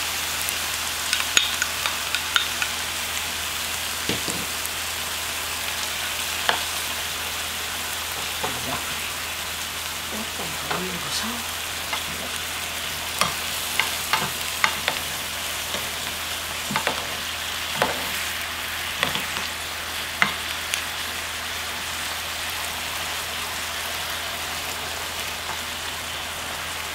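Tofu cubes and enoki mushrooms sizzling in a soy-chili sauce in a pan, a steady sizzle with scattered pops and clicks as a wooden spatula stirs them. The sauce is bubbling down over medium heat.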